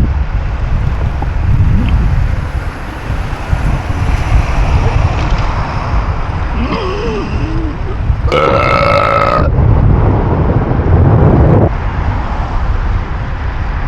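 A man letting out several loud, long, low burps, one after another.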